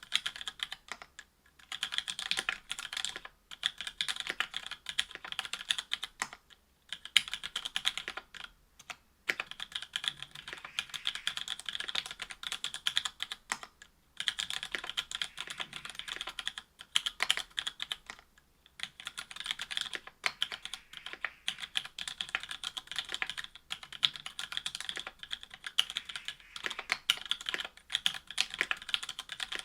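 Continuous typing on a mechanical keyboard with stock, unlubed Cherry Hyperglide MX Black linear switches, an FR-4 plate and GMK keycaps: a dense run of key clacks, broken by a few brief pauses.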